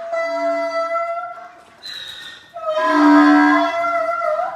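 Two roosters crowing, one long crow after the other, the second louder, each falling in pitch at its end.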